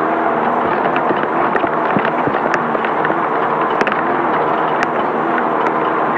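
Class 5/1600 VW Bug's air-cooled flat-four engine running hard under race load, its pitch rising and falling with the throttle, over a steady rattle of the car on rough desert ground. Scattered sharp knocks and clicks cut through several times.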